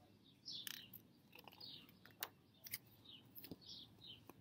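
Faint bird chirps, short and high, scattered through the quiet, with a few faint sharp clicks.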